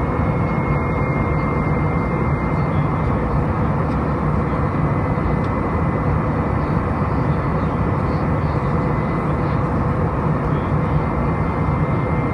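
Steady cabin noise of an Airbus A319 in flight, heard from a window seat over the wing: the CFM56 turbofan engines and rushing airflow, with a faint steady high whine running through it.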